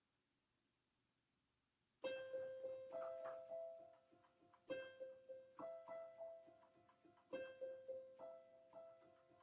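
Solo piano improvisation starting about two seconds in, recorded with poor sound quality. A phrase of a ringing note with chord tones is struck and left to fade, then starts again roughly every two and a half seconds.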